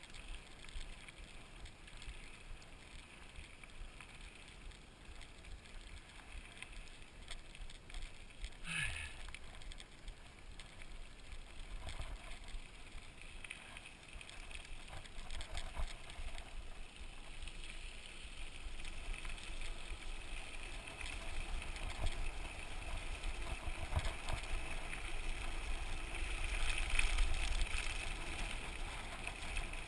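Mountain bike rolling along a trail: tyre and drivetrain noise with wind on the camera microphone, growing louder in the second half. A brief falling squeak comes about nine seconds in.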